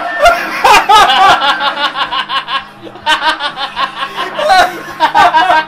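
People laughing hard in two long fits of rapid, repeated bursts, with a short break about halfway through.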